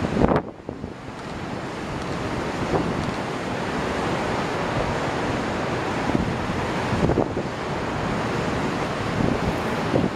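Wind gusting on the microphone over choppy sea waves washing against breakwater rocks.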